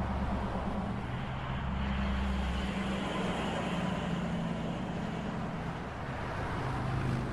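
Road traffic: a steady hum of vehicle engines running, with a low drone that shifts in pitch as vehicles pass.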